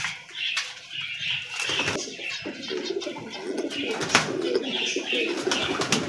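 Domestic doves cooing repeatedly, with a few sharp clicks in between.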